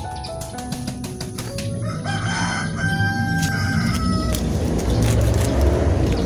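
A rooster crowing in long held calls over background music.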